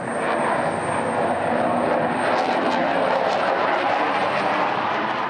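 Twin jet engines of a Super Hornet-family fighter flying low past: loud, steady jet noise with a thin high whine over it, easing off near the end.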